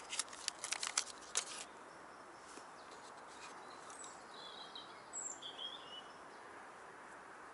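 Crinkling and clicking of a small plastic packet of boilie stoppers being handled for about the first second and a half, then faint steady outdoor background noise with a few short bird chirps in the middle.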